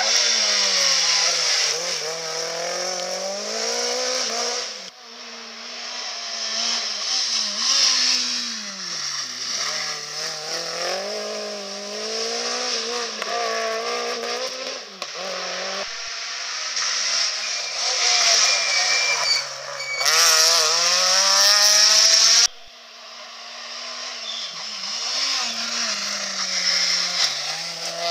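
Rally cars braking into tight hairpins and accelerating out, one after another. Each engine's pitch drops on the approach, then climbs repeatedly as the car pulls away through the gears.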